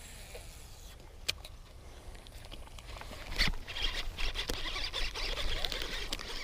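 Tall grass rustling and brushing close to the microphone as a person moves through it, starting about halfway. Two sharp clicks come before it, one about a second in and one around the middle.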